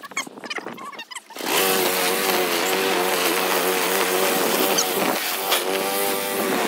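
Walk-behind gasoline lawn mower's small engine running steadily while cutting grass. It comes in about a second and a half in, after some scattered rustles and knocks.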